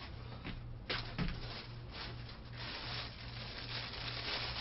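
A plastic bag rustling and crinkling as it is handled, louder in the second half, after a couple of small knocks about a second in. A low steady hum runs underneath.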